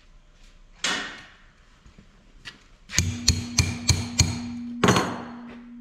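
Hammer tapping on the steel shaft of a 47RE transmission overdrive unit to knock it loose: one knock about a second in, then a quick run of about six sharp metallic taps and a harder strike, leaving the metal ringing.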